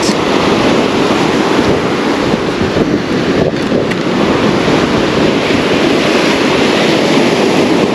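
Surf breaking and washing up the beach, with strong wind buffeting the microphone in a steady, loud rush.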